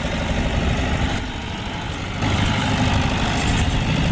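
John Deere 2850 tractor's diesel engine running steadily while pulling a disc harrow, getting louder about two seconds in.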